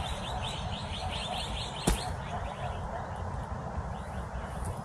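A bird calling in a rapid, even run of short chirps, about six a second, fading out about halfway through. A single sharp click about two seconds in, over steady low background noise.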